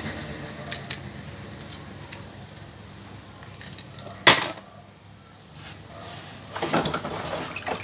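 Die-cast toy cars clinking: one sharp clack about four seconds in as a car lands on a pile of other toy cars, then a spell of clattering near the end, with a few light clicks before.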